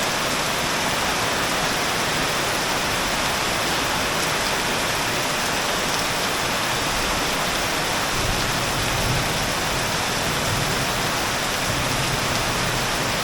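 Torrential tropical downpour: heavy rain falling and pouring steadily without a break.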